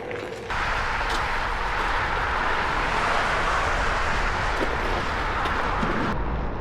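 Steady rushing noise of a Onewheel being ridden through fresh snow. It starts abruptly about half a second in and cuts off abruptly near the end.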